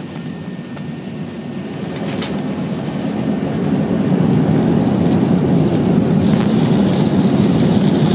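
Airbus A380-800 airliner rolling out on the runway after touchdown, heard inside the cabin as a deep, steady rumble. It grows louder about three seconds in and then holds, with one brief click about two seconds in.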